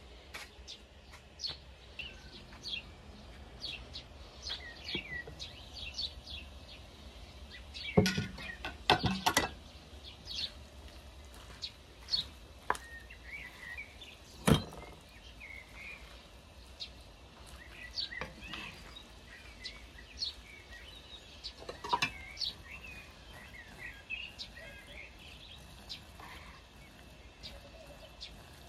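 Small birds chirping and twittering on and off throughout. A few sharp knocks and clinks of cookware stand out, the loudest about eight, nine and fourteen seconds in: a glass lid and a wooden spoon against a frying pan as food is dished out.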